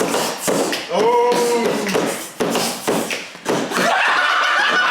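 Tapping and thumping on a table with a man's wordless singing or vocalising over it.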